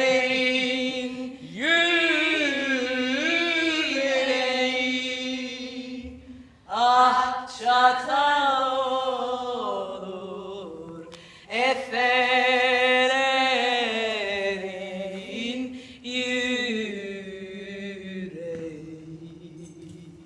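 A woman singing a Turkish folk song unaccompanied, in three long, drawn-out phrases with wavering ornaments on the held notes. She breaks for breath about six and a half seconds in and again about eleven and a half seconds in, and the voice grows quieter toward the end.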